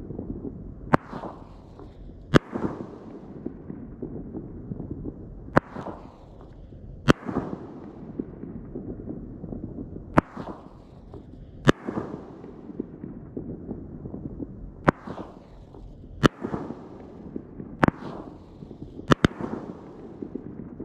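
Consumer firework cake of gold strobe mine-to-break shots firing: sharp bangs in five pairs, the two bangs of each pair about a second and a half apart, fitting each shot lifting and then bursting in the air. A steady soft rushing noise runs between the bangs, with no hissing strobe crackle.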